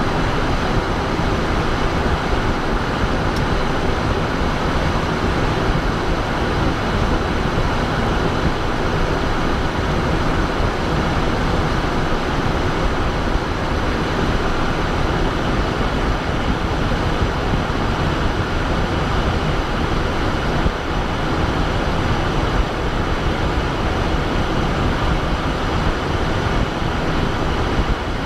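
Steady in-flight cockpit noise of a Cessna Citation Bravo business jet: the rush of air over the airframe blended with the even drone of its twin turbofan engines, with a faint steady whine above.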